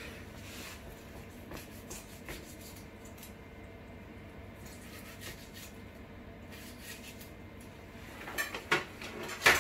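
Kitchen knife cutting lemon peel on a board: faint scattered taps and rubbing over a steady low hum. A quick run of louder clicks and clatters comes near the end.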